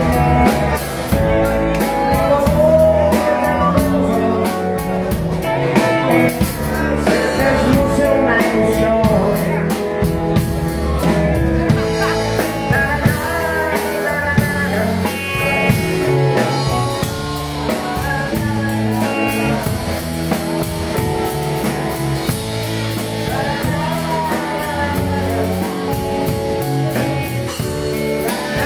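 Live rock band playing: drum kit, electric bass, electric guitars and keyboard, with a wavering melodic line on top.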